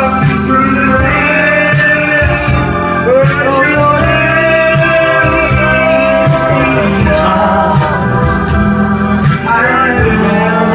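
Loud pop music with a singing voice and a steady drumbeat, played over a disco sound system.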